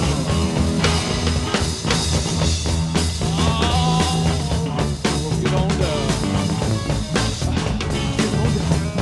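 Rock music with a drum kit keeping a steady beat.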